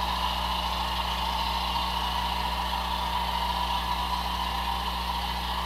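A steady low hum with a faint, even whine above it, unchanging throughout.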